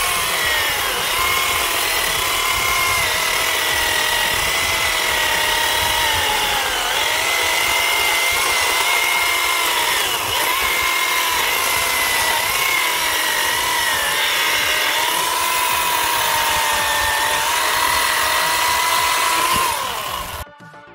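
Ribimex PRBAT20/TRO battery chainsaw, powered by two 20 V batteries, running at speed and cutting through a log. Its steady whine dips slightly in pitch a few times under load, and it cuts off abruptly near the end.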